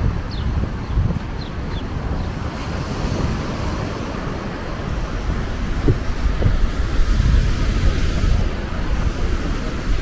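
Wind buffeting the microphone with a low rumble, over the wash of surf on a sandy beach; the gusts grow stronger after about seven seconds.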